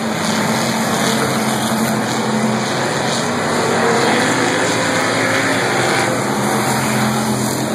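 Several hobby stock race cars' engines running together on the track, a steady loud drone whose pitch drifts slightly as the cars go around.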